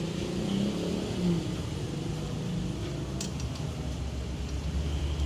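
A motor vehicle engine running steadily, its low hum growing stronger near the end, with a short click about three seconds in.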